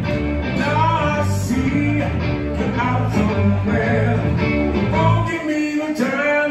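Live band playing: a man singing over electric guitar and bass. The deep bass notes stop about five seconds in while the singing and guitar carry on.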